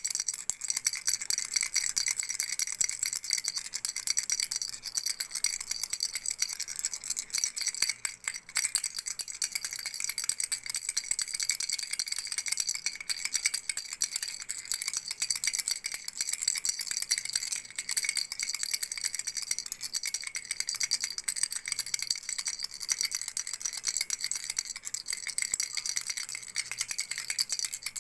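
Baby's frog rattle shaken without a break: a dense, fast rattle with a bright jingly ring. It falters briefly about eight seconds in.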